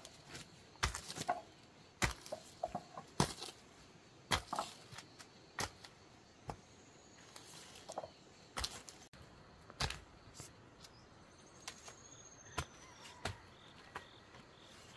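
Irregular sharp knocks or strikes, roughly one a second, some louder than others.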